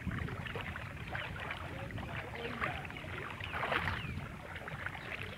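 Bare feet wading through ankle-deep floodwater on a path, irregular splashes and sloshes with each step, over a low rumble.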